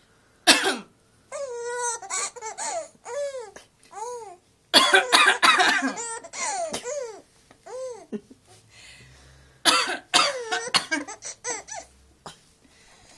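A woman coughing in short rounds, and a three-month-old baby laughing in high-pitched, rising-and-falling squeals after each round. There is a single cough about half a second in, a longer run of coughs in the middle, and more coughs near the end that overlap the baby's laughter.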